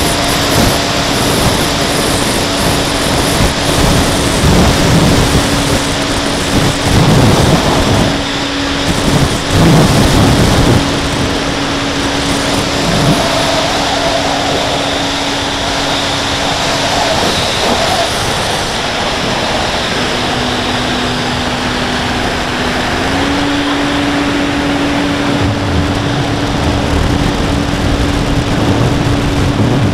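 Carbon-Z Cub RC plane's electric motor and propeller humming at a steady pitch under heavy wind rush on the onboard camera's microphone. The wind buffets harder in the first third. The motor pitch drops for a few seconds past the middle, then steps back up.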